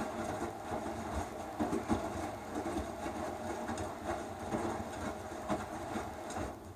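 Electrolux Eco Turbo TRW12 top-loading washing machine running, a steady motor hum with uneven knocks and clatter from the drum. Near the end the drive cuts off suddenly and the sound dies away.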